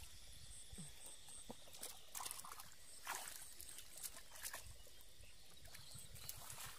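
Bare hands squelching and sloshing through soft wet mud and muddy water, with faint scattered splashes. A faint high chirping repeats in short runs in the background.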